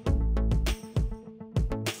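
Background music with a steady beat: sharp drum hits over a bass line.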